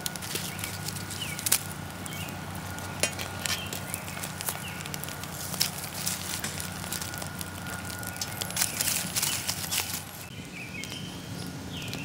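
Wood campfire crackling, with sharp irregular pops and snaps from the burning logs. Faint bird chirps sound now and then in the background.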